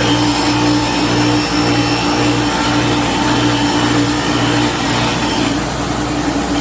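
Bench grinder running steadily, its wheel grinding casting swarf off a drill-press casting: a steady motor hum with a gritty hiss over it.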